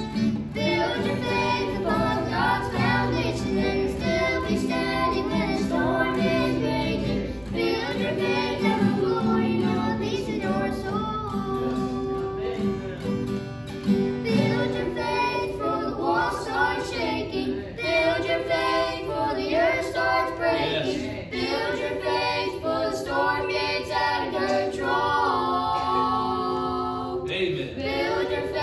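Children singing a gospel song in harmony, a girl's lead voice with two boys' harmony, accompanied by strummed acoustic guitar and ukulele.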